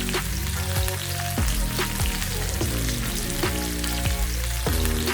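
Marinated mackerel pieces sizzling steadily in hot coconut oil in a pan on a high flame, under background music.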